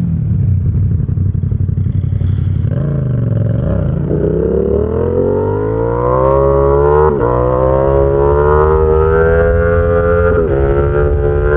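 Yamaha XSR700's 689 cc parallel-twin engine through an SC Project exhaust. It runs at low revs, then accelerates hard with rising pitch, broken twice by quick clutchless quickshifter upshifts where the pitch dips sharply and climbs again.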